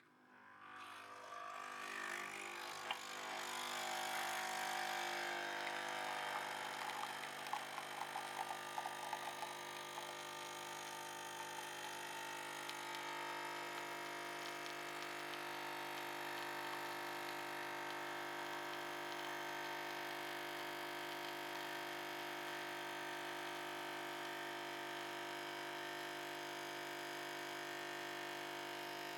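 Nespresso coffee machine's pump running through a cleaning rinse: a steady buzzing hum that swells up over the first few seconds, with some crackling and sputtering in its first third.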